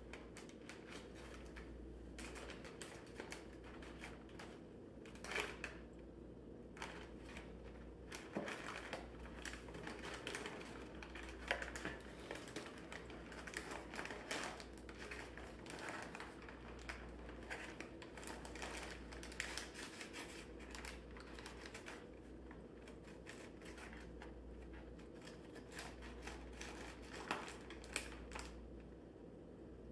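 Cardboard box and crumpled packing paper crinkling and scraping as a cat shifts and settles inside the box: irregular crackles and scratches, some louder, over a low steady hum.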